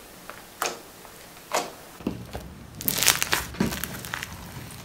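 Hands pressing and squeezing gold glitter slime mixed with foam clay, giving two short sticky pops about a second apart, then a denser run of crackling, squelching pops past the middle.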